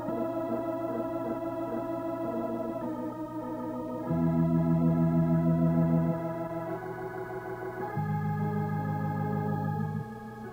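Organ music playing held chords that change every couple of seconds, with deep bass notes sounding about four seconds in and again about eight seconds in.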